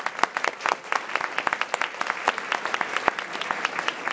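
Audience applauding: a dense patter of hand claps, with a few louder single claps close by standing out.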